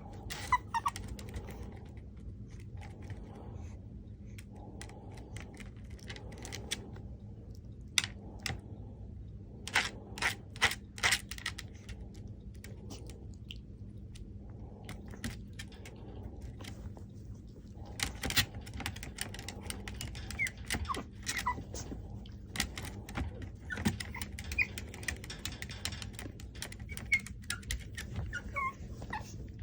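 Chihuahua puppy giving a few faint, short, high whimpers like a small bird's chirps, among scattered clicks and taps over a steady low hum.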